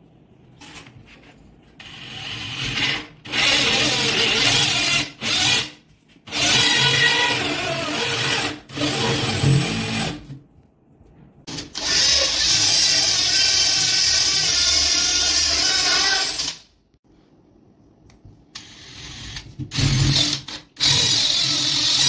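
DeWalt 20V XR cordless drill turning a hole saw into a door, cutting the lock holes. It runs in a series of stop-start bursts of one to five seconds, the longest a little past the middle, with short pauses between.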